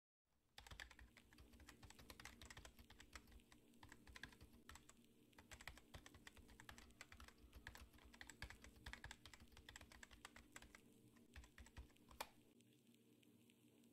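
Faint rapid keyboard typing clicks, a typing sound effect, ending with one louder click near the end. A low steady hum runs underneath.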